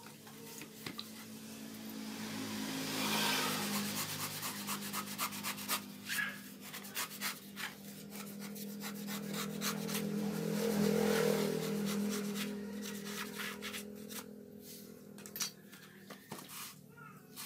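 Knife blade scraping and shaving the dry outer husk of a whole coconut: a rapid run of rasping strokes that grows louder and fades twice, over a low steady hum.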